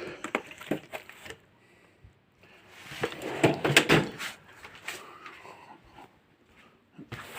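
Handling noises: scattered clicks and knocks, and a rustling scrape lasting about two seconds in the middle.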